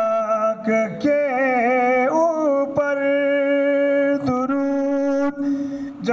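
A man sings an Urdu devotional poem unaccompanied into a handheld microphone. He draws out long held notes, with ornamented, wavering pitch on some and one long steady note in the middle.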